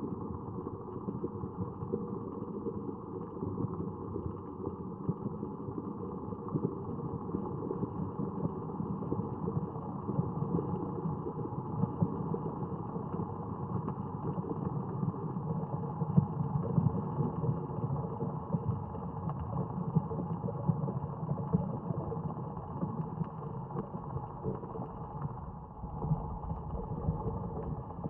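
Steady low, noisy ambient drone of the installation's designed soundtrack, with a constantly churning texture and no distinct events.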